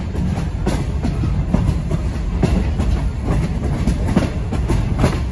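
Passenger coach rolling along the track: a steady low rumble with irregular clicks of the wheels passing over rail joints.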